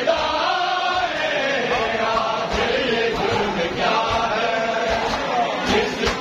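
A large crowd of men chanting a noha together in a loud, continuous lament, with scattered thuds of hands striking chests (matam).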